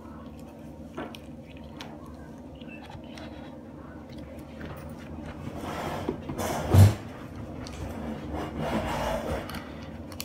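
Handling noise close to the microphone: rubbing and scraping as hands move slime containers and lids on a table. One thump comes about seven seconds in.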